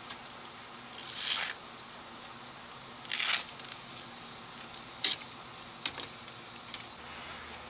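Five short rustles and crinkles as a small blue pouch is handled. The first two last about half a second each, and the later ones are sharper and shorter.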